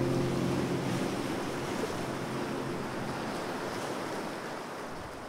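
The last held notes of the music die away within the first second, leaving a steady, even rushing noise that slowly grows quieter.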